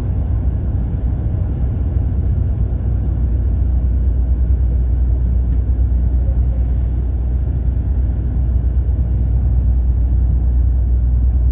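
Steady low rumble of engine and road noise inside the cabin of a moving road vehicle.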